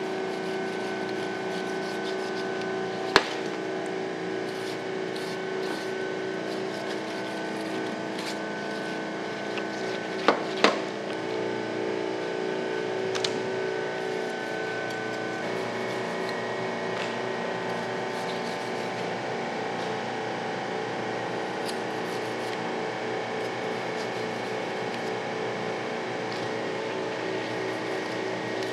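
Knife cutting and scraping through shark flesh on a stainless steel table, with sharp knocks of the blade on the steel, once about three seconds in and twice in quick succession about ten seconds in. A steady mechanical hum of several held tones runs underneath, changing pitch about halfway through.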